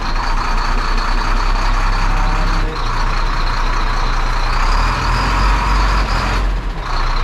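Heavy diesel truck engine running steadily, a continuous low rumble with a faint high whine above it.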